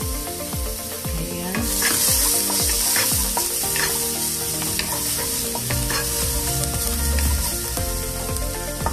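Minced ginger and garlic sizzling in hot cooking oil in a frying pan while being stirred, with short clicks of the spatula against the pan. The sizzle grows louder about two seconds in.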